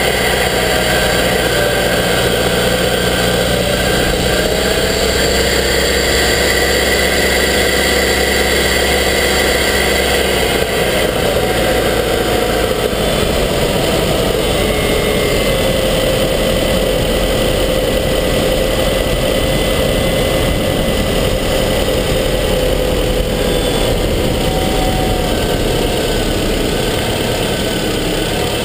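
Subaru Forester XT's turbocharged flat-four engine running, heard close up from inside the engine bay. Its pitch wanders during the first ten seconds or so, then holds steady, then shifts again near the end.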